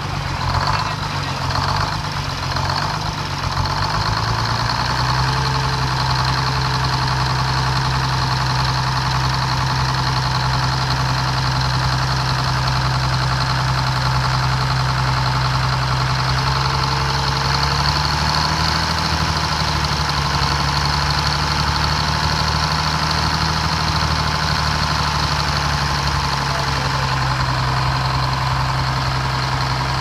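Old truck engine serving as a sawmill's power unit, running at idle. It runs unevenly for the first few seconds, then settles into a steady hum, its pitch lifting slightly for several seconds past the middle.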